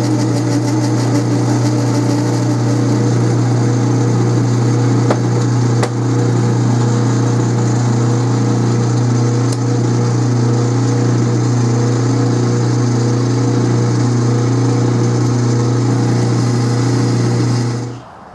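Atlas 12-inch commercial lathe running steadily under a heavy facing cut in stainless steel bar, with a strong steady low hum under the cutting noise. It cuts off suddenly near the end.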